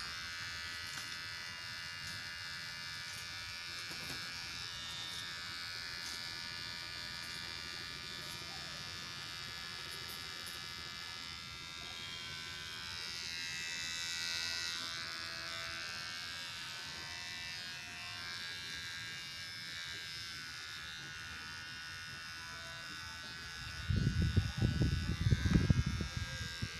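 Mi beard trimmer's motor running with a steady high buzz while it is drawn over facial stubble. A few seconds before the end, loud irregular low thumps break in.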